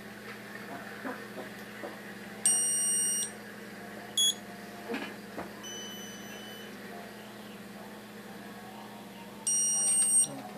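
Dental LED curing light beeping while it cures the bridge's bonding resin. Two long, high beeps come about seven seconds apart, with a short beep and a fainter tone between them, marking the timed curing cycle. A steady low hum runs underneath.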